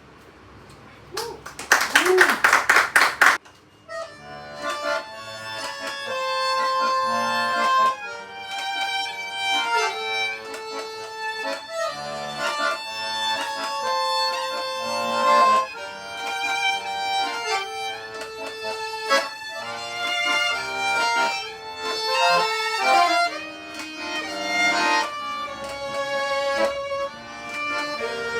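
Live acoustic folk music played by a duo, with held melody notes and a steady pulse. It comes in after a short burst of rapid, loud strokes about two seconds in.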